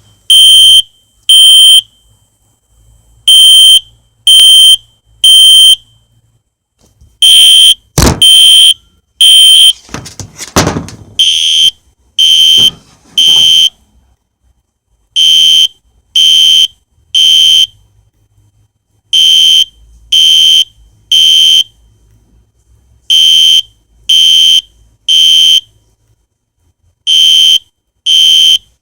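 Spectra Alert fire alarm sounding a high, loud beep in the temporal-three evacuation pattern: three half-second beeps a second apart, then a pause, repeating every four seconds. A sharp knock about eight seconds in, and a little rustling and knocking just after, come between the beeps.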